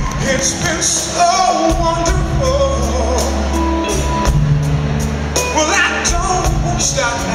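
Live soul band playing a ballad, with a male lead singer singing into the microphone over the band and drums.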